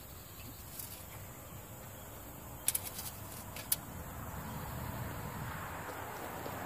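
Paper catching fire under a charcoal chimney starter loaded with briquettes: a soft rushing hiss of flame that swells about two-thirds of the way through, after a few sharp clicks near the middle.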